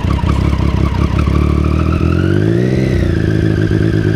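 Triumph Street Triple 675R's three-cylinder engine through an unbaffled Dominator slip-on exhaust, revved smoothly up from idle about a second in and then held steady at higher revs.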